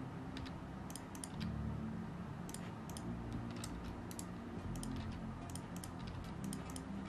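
Irregular, scattered clicks of a computer keyboard and mouse in use, some in quick pairs, over a low steady hum.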